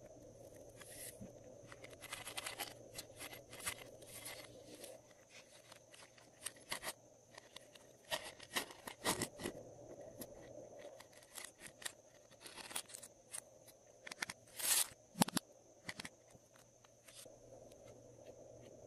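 Hands handling small plastic items: a quiet run of light clicks, scrapes and rattles as a zippered star-shaped plastic case is opened and beads and glitter are handled, with a louder rasping burst about fifteen seconds in.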